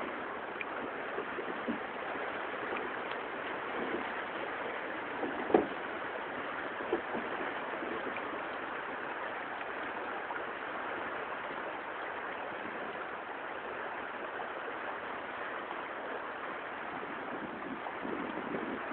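Steady rush of river water, with a few light knocks, the loudest about five and a half seconds in.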